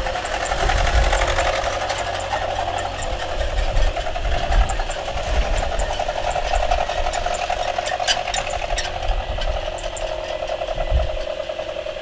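Boeing 737-800's CFM56 turbofan engines running at low thrust with a steady droning buzz and a low rumble as the airliner lines up on the runway for takeoff. Faint high clicks are scattered throughout, with a small cluster about eight seconds in.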